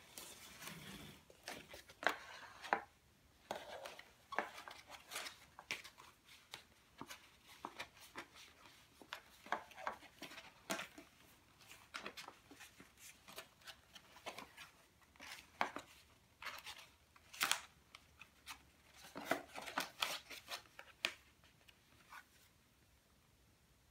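Cardstock being handled and folded by hand: irregular crisp rustles, taps and clicks of stiff paper flaps against each other and the tabletop, easing off near the end.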